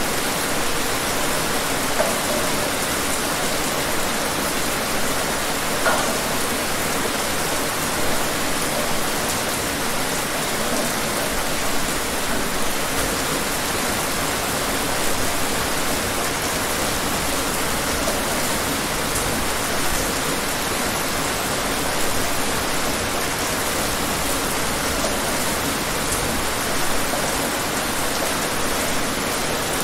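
Steady rain falling: an even hiss with an occasional louder drop standing out.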